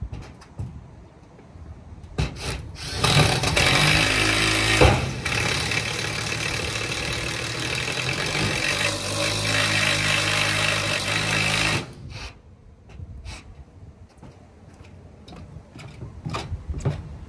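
Power drill driving a screw into metal roofing: the motor runs steadily for about nine seconds and cuts off abruptly, with a few light knocks before and after.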